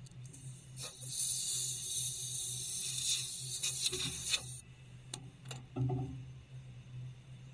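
A steady hiss lasting nearly four seconds, with a knock as it starts and stops, followed by a few short knocks, over a low steady hum.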